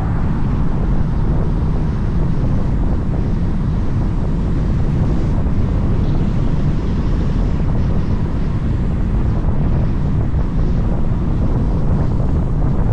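Steady, loud low rumble of wind and road noise from a moving vehicle, unchanging throughout.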